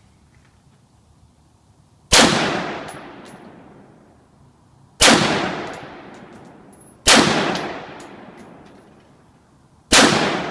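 Four single rifle shots from a Daniel Defense M4 V7 semi-automatic AR-15 carbine, fired two to three seconds apart, each cracking sharply and echoing away over a second or more, with small clicks following each shot.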